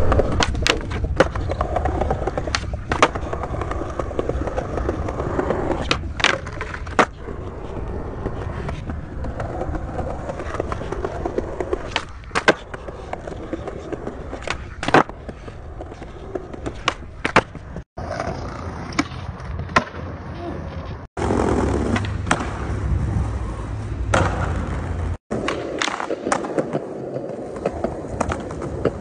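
Skateboard wheels rolling on concrete with a steady rumble, broken by many sharp clacks of the tail popping and the board landing.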